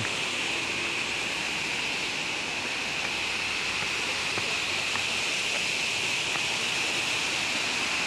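Steady, even rush of falling water from a tall waterfall, about 105 metres high.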